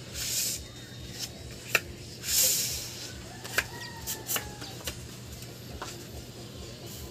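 Putty knife scraping across a tabletop twice as white lacquer putty is spread, with several sharp clicks of the knife against the putty container. Chickens cluck faintly in the background.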